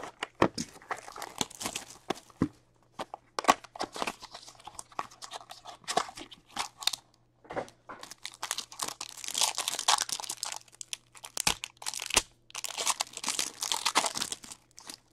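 A box cutter slits open a cardboard hockey card box, then the wrapper of an Upper Deck SP Game Used pack is handled and torn open. Sharp clicks and crackles throughout, with long bursts of crinkling and tearing near the middle and again near the end.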